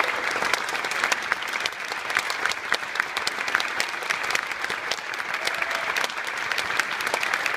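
Audience applauding: many hands clapping together in a dense, steady patter that swells at the start and then holds.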